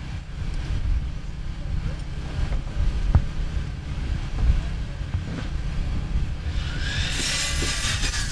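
Steady low rumble. Near the end an electric miter saw runs and cuts timber, its whine rising and then falling.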